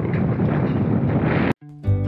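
Wind blowing across the microphone as a loud, steady rush for about a second and a half, then cut off suddenly. Guitar music starts a moment later.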